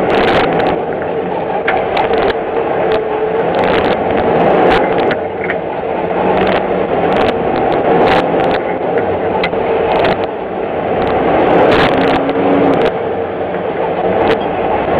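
Semi truck with a 13-speed Eaton Fuller manual transmission driving, heard inside the cab: steady engine and road noise with scattered clicks and rattles.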